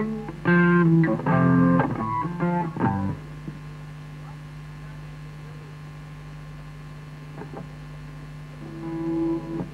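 Electric guitar through an amplifier plays a quick run of notes lasting a couple of seconds, then stops. A steady amplifier mains hum carries on. A brief held note sounds near the end.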